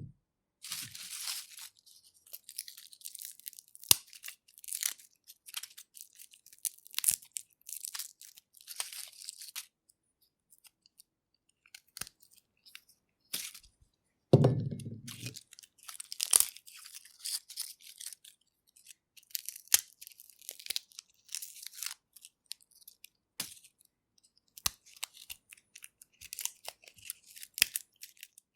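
Papery garlic skins being peeled and torn off the cloves: irregular dry crackling and tearing in short spells with pauses. A dull knock about halfway through is the loudest sound.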